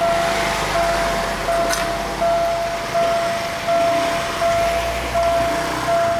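Railway level-crossing warning bell sounding, a repeated electronic ding about four times every three seconds, over a low engine rumble from a nearby vehicle. The crossing's barrier is malfunctioning: it failed to lift after the train passed, so the warning keeps going.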